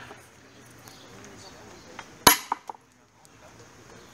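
Metal palets thrown onto a wooden palet board. A sharp clack comes about two seconds in, followed by a couple of quick smaller knocks as the disc settles. A faint background haze sits between throws.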